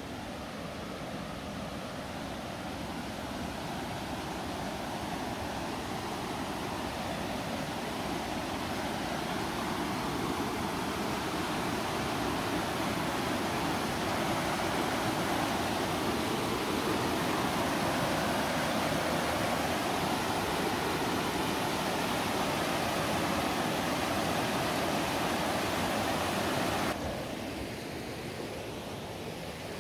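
River rapids rushing over a rocky ledge: a steady wash of water noise that grows louder as they are approached, holds steady, then falls away abruptly near the end.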